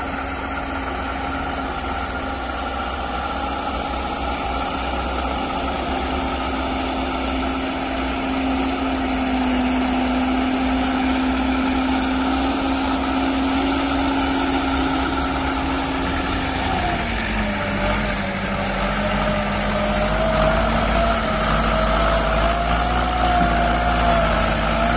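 Single-cylinder diesel engines of two-wheel walking tractors pulling loaded trailers, running steadily and growing louder as they come closer. About 17 seconds in, the engine note drops and then wavers.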